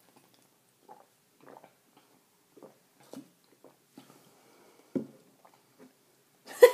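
Two people drinking from plastic shaker cups: a string of soft, scattered gulps and mouth sounds, with a louder one about five seconds in and a short louder voiced sound, like an 'ah' after drinking, near the end.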